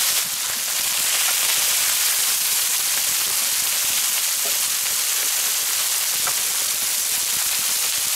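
Minced-beef burger patties and pineapple slices sizzling steadily on a hot wood-fired steel griddle plate.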